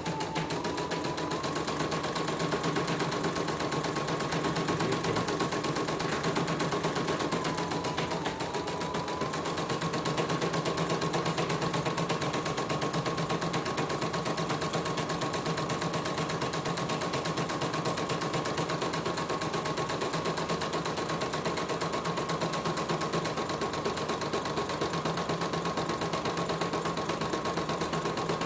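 CNY portable embroidery machine stitching at speed: a continuous rapid clatter of needle strokes over a steady motor whine that sags briefly about half a second and about eight seconds in. A test run after repair, with the thread running without breaking.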